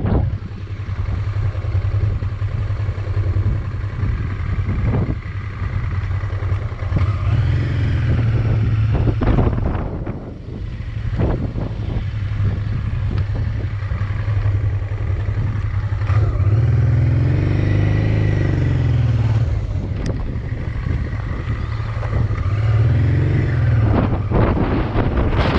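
Motorcycle engine running while riding, with wind rushing over the microphone; the engine note rises and falls a couple of times in the second half.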